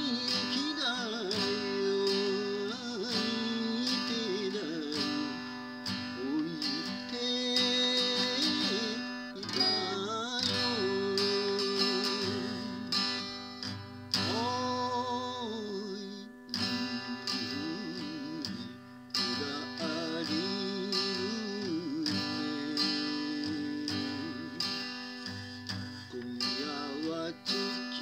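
A man singing a Japanese song, accompanying himself on a strummed acoustic guitar, with some long held notes sung with vibrato.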